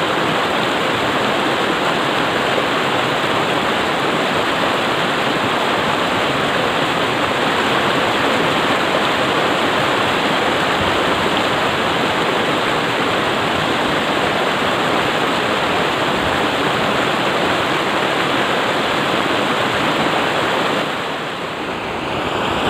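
Shallow rocky river rushing through whitewater rapids: a steady, loud rush of water, dropping slightly near the end.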